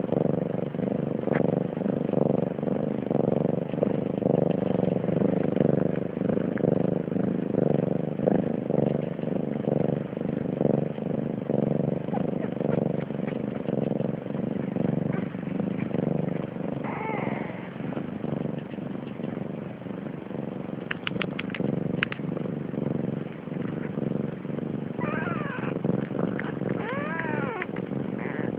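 A cat meowing: one call partway through, then several in a row near the end, over a steady low rumbling noise. A few quick clicks come in the middle.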